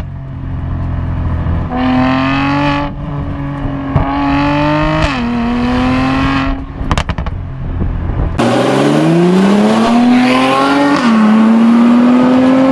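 Mercedes-AMG C43's twin-turbo V6 through an Fi valvetronic catback exhaust, accelerating through the gears: a rising engine note broken by several quick upshifts, with a short burst of crackle around seven seconds in. About eight seconds in the sound cuts abruptly to another hard-accelerating pass, louder and with more hiss, again rising with upshifts.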